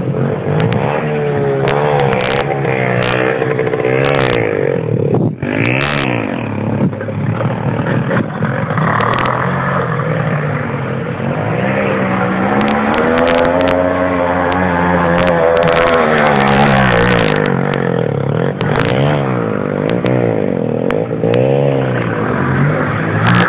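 Engine of an off-road vehicle revving up and down repeatedly, with a longer, slower rise and fall of pitch near the middle. A few short knocks and scrapes come through along with it.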